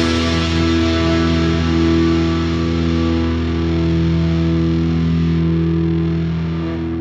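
Background rock music: a held, distorted electric guitar chord that rings on steadily and fades slightly near the end.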